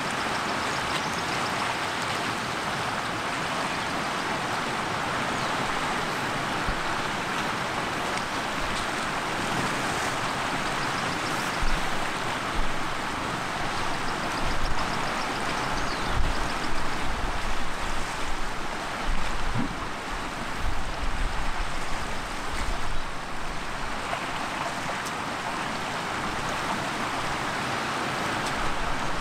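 Steady rushing of flowing river water. Irregular low rumbles and thumps come and go from about twelve to twenty-four seconds in.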